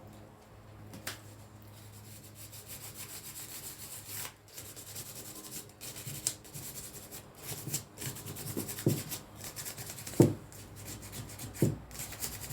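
Very fine P2500 sandpaper rubbed in quick back-and-forth strokes over a painted miniature fairy house, scuffing off loose paint. Three knocks come in the second half, the loudest about ten seconds in.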